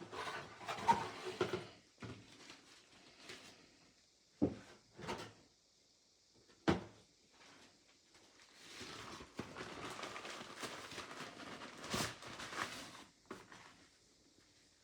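Cardboard and paper packaging being handled and opened: a few sharp knocks and taps, and a longer stretch of rustling in the second half.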